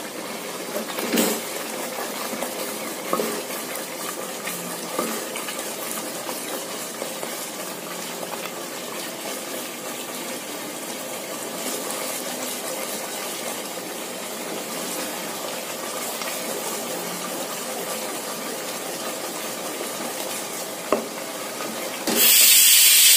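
Thick masala paste sizzling steadily in hot oil in a non-stick pan as it is stirred with a wooden spatula, with a few soft knocks of the spatula against the pan. The paste is at the late bhuna stage, where the oil separates from the fried spices. Near the end a much louder burst of hiss comes in briefly and is cut off abruptly.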